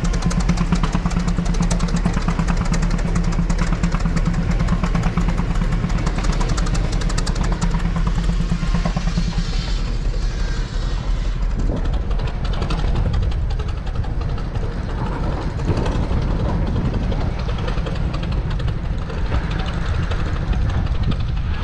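Engines running steadily with a low rumble; a steady low tone in it fades about ten seconds in.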